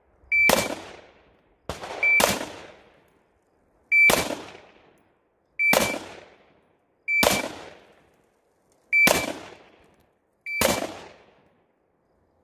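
Single shots from an AR-style rifle, about seven of them, spaced roughly one and a half to two seconds apart. Each crack is followed by a short echo tail that dies away before the next shot.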